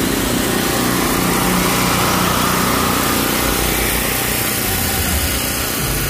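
A small motor running steadily: a loud, constant low hum with a hiss over it.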